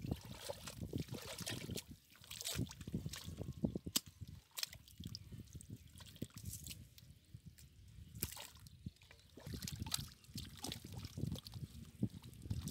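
Wet mud and shallow water squelching and sloshing as hands dig and grope through it, with irregular small splashes and drips.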